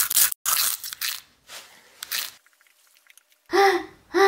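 Crunching from biting and chewing a giant Cheeto ball, about five sharp crunches in the first two seconds, then a voice near the end.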